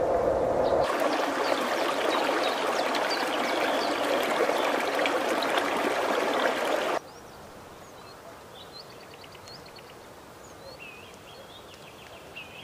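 Steady rushing of running water, like a stream, with faint high chirps over it; about seven seconds in it cuts off suddenly to a much quieter background with scattered short, high bird chirps and calls.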